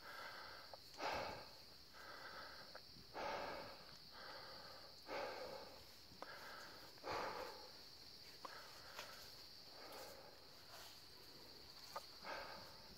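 Heavy breathing of a hiker close to the microphone from exertion on a steep trail: a strong breath about every two seconds with quieter ones in between, over a faint steady high-pitched drone.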